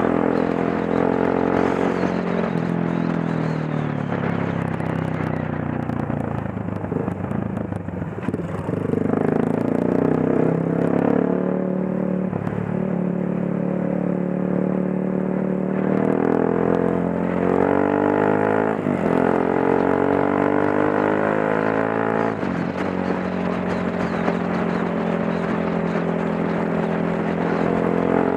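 Motorcycle engine heard from the rider's seat while riding in traffic, its pitch climbing as it accelerates and stepping down at gear changes; it eases off about seven seconds in, then pulls away again and repeats the pattern.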